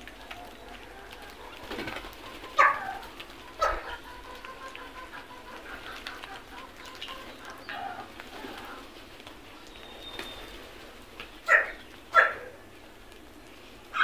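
House crows cawing: two loud short caws about a second apart, then two more near the end, over fainter calls of other birds.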